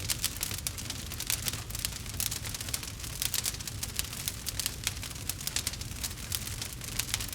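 Wood fire crackling steadily, with frequent sharp pops and snaps over a low rumble of the flames.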